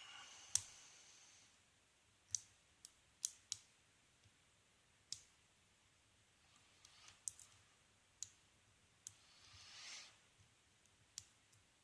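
Lock pick working the pin tumblers of a Best 6-pin brass padlock during single pin picking: about a dozen small, sharp clicks at irregular intervals, with a soft scrape of the pick near the start and again near the end.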